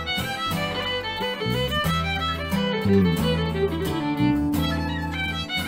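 Traditional Irish reel played on fiddle, with acoustic guitar strumming and electric bass guitar keeping up a steady bass line.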